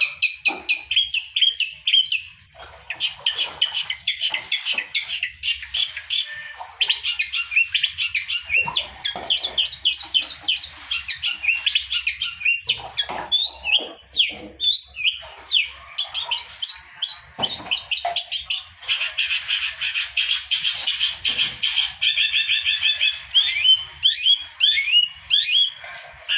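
Long-tailed shrike (pentet) singing in full, continuous song: rapid streams of short, high chattering notes with only brief breaks.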